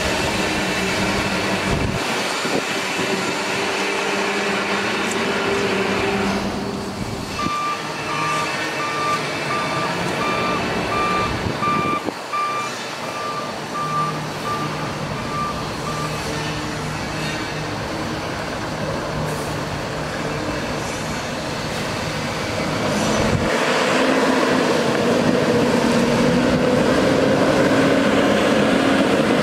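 Freightliner M2 water truck's Cummins ISC diesel running, with its reverse beeper sounding a string of beeps, about one and a half a second, from about a quarter of the way in to about halfway. In the last few seconds the engine speeds up and the PTO-driven pump's water spray rushes louder.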